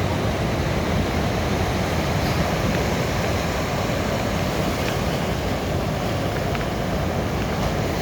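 Sea waves rolling onto the shore, a steady low rush of surf with no separate breaks standing out.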